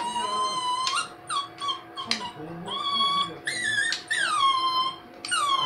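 A small dog whining in a string of high-pitched whimpers, about eight in a row, some drawn out and some short, while it is held for its nails to be clipped.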